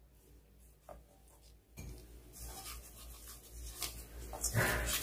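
Gloved hands mixing blanched bangpung greens with gochujang seasoning in a stainless steel bowl: faint rubbing and squishing with a few soft ticks. A short rush of noise comes near the end.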